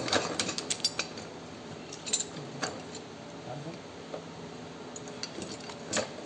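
Metal clinking and knocking as a seed drill's forking pipe is fitted onto its metal main shaft. There is a quick run of clicks in the first second, then a few scattered clinks, with a sharper knock near the end.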